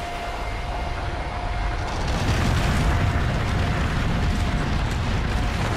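Glacier ice front calving: a deep rumble builds over the first two seconds and carries on with the crash and hiss of ice and spray falling into the water.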